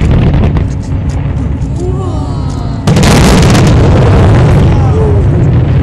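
Fireworks display going off: a continuous low rumble of booms with crackling pops, and a sudden much louder blast of noise about three seconds in that lasts a second or two. Spectators' voices are heard nearby.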